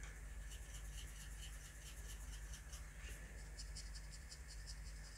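Faint, quick scratching of a fine watercolour brush stroking and dabbing paint onto paper, about five light strokes a second, a little stronger in the second half, over a low steady hum.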